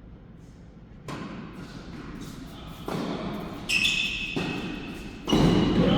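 Tennis ball being struck and bouncing on an indoor court: four thuds, each louder than the last and the loudest near the end, echoing in the hall. A brief high squeak comes with the third thud, about midway.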